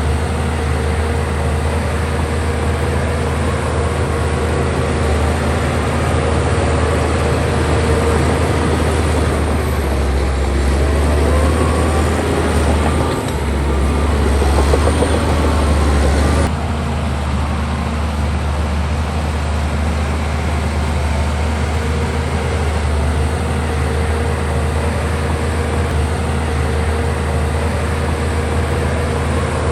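Heavy diesel engine of earthmoving machinery running steadily. About a third of the way in it grows louder and busier for several seconds, then drops back abruptly to the steady run near the middle.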